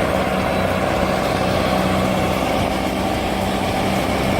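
Heavy machinery's diesel engine running steadily at a constant speed, with a low, even drone.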